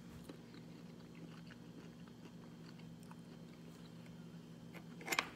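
Quiet chewing of soft cherimoya flesh: faint scattered mouth clicks over a low steady hum, with a couple of sharper clicks near the end.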